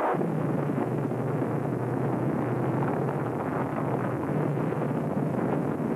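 A steady, unbroken rumbling roar with a constant low hum beneath it: the drawn-out sound of a nuclear explosion as its mushroom cloud rises, on an old archival soundtrack.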